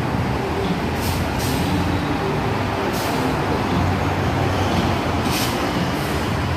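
City transit bus running as it approaches, a steady low engine and traffic rumble, with a few short air hisses from its brakes.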